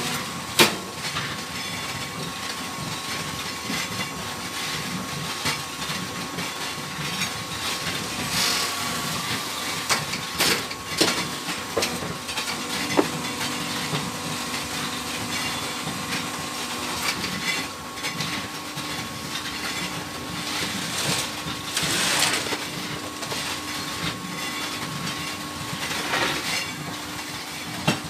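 Semi-automatic hydraulic fly ash brick press running: steady hum of its hydraulic power pack, with a lower tone coming in about halfway through. Several short metallic clanks and knocks come as the press and mould move through a pressing stroke.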